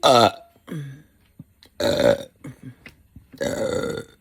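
A person burping loudly from soda: a short burp falling in pitch, a smaller one right after, then two longer, deeper burps about two seconds in and near the end.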